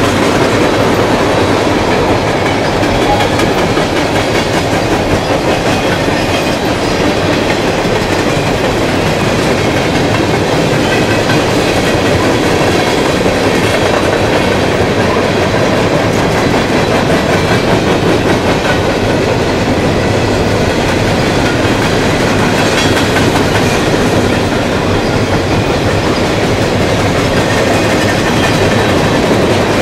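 A long freight train of tank cars and boxcars rolling past. Its wheels click over the rail joints with a loud, steady rumble.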